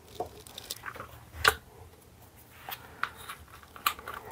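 Light clicks and taps of hands handling small items at a workbench, with one sharp knock about a second and a half in and a few smaller clicks later on.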